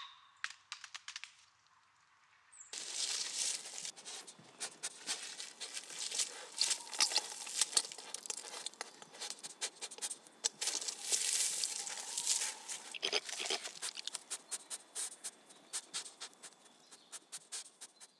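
European badgers rustling and crackling through dry bedding at their sett entrance, a sign of the badgers changing their bedding. After a quiet start with a few clicks, dense crinkling rustles begin about three seconds in and go on almost to the end.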